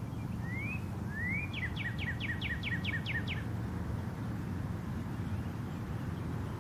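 A songbird sings: two short rising whistles, then a quick even run of about nine falling notes lasting roughly two seconds. A steady low rumble runs underneath.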